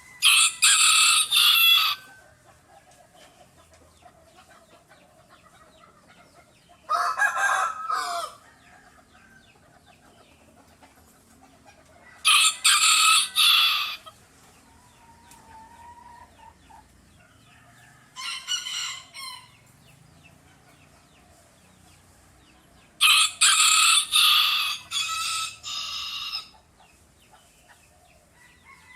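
Rooster crowing, five crows about five seconds apart; the last crow is the longest and breaks into several parts.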